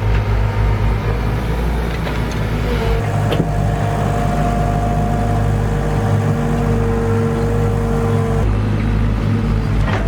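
Engine running steadily: a low drone with a steady whine above it that shifts pitch slightly around the middle, and a few sharp knocks.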